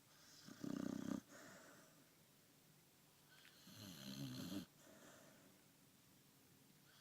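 A sleeping dog snoring: two loud snores about three seconds apart, each trailing off into a fainter breath.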